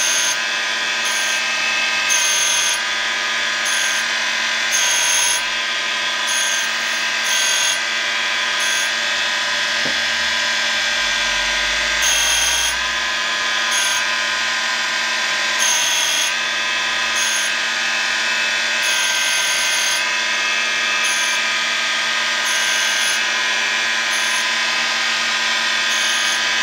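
Surface grinder's wheel grinding a mild steel block: a steady motor whine with a high grinding hiss that swells and fades every second or two as the wheel passes back and forth over the part.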